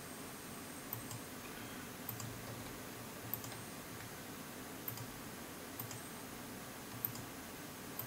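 Faint computer mouse clicks, about seven spread out at irregular intervals, over a steady low background hiss and hum.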